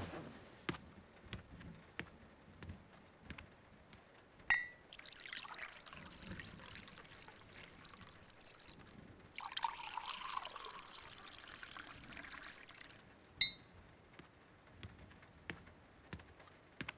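A few light taps, then a mug clinks and liquid is poured into it in two pours of a few seconds each, the second one louder, followed by another ringing clink. This is a hot drink being made up from a drink-mix packet.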